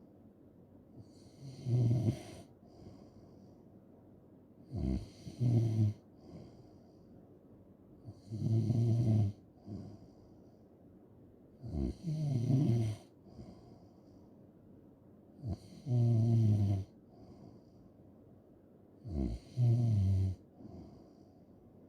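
A person snoring in a slow, regular rhythm: about six snores, one every three to four seconds. Each is a short catch followed by a longer, low-pitched snore, with quiet breathing between.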